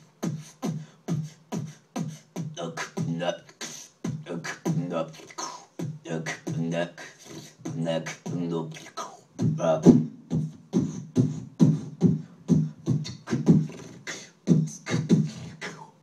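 Freestyle dubstep-style beatboxing into a microphone: a fast, unbroken run of short pitched bass notes mixed with sharp click and hi-hat-like hiss sounds, several strokes a second, peaking about ten seconds in.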